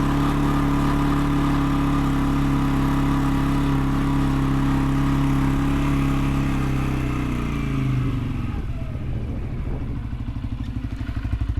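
Engine running steadily at raised speed, then winding down about seven seconds in and settling into a low, pulsing idle.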